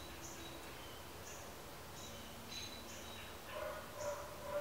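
Faint high chirps of a small bird, about one a second. Near the end a felt-tip marker squeaks as it is drawn along wood, and this is the loudest sound.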